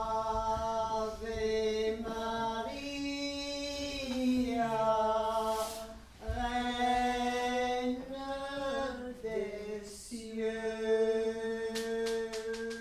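A woman singing unaccompanied in long held notes, like a chant. She breaks off briefly about six and ten seconds in, and the pitch slides down once before the second break. A few faint clicks come near the end.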